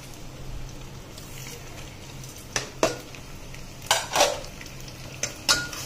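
Whole spices dropping onto onions frying in oil in a pressure cooker, with a faint sizzle, then a few sharp clatters of the steel ladle against the pot and the plate being set down, the loudest around the middle.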